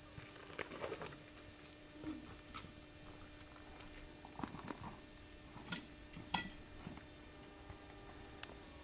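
Faint, scattered light taps and clicks over a steady low hum, with two sharper ringing clicks a little after halfway, under a second apart.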